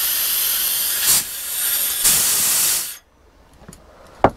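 Loud hiss of compressed air from the machine being used to inflate fishing buoys, swelling briefly twice, then cutting off suddenly about three seconds in as the machine stops. A single sharp knock follows near the end.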